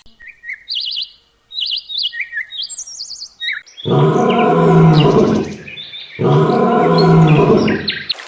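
Songbirds chirping in short high trills, then two long, loud, low calls from a large animal, about two seconds each, with birds still chirping faintly over them.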